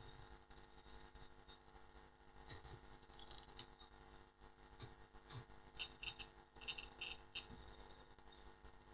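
Faint clicking on a laptop's trackpad and keys: a few scattered clicks, then a quick run of them in the second half, over a low steady hum.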